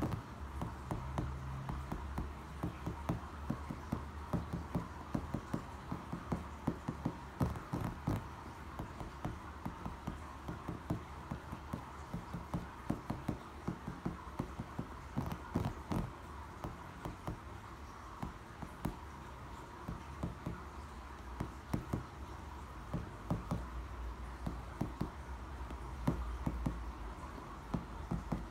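Fingertips tapping quickly on a pool brick: many short, sharp taps coming in uneven runs and patterns.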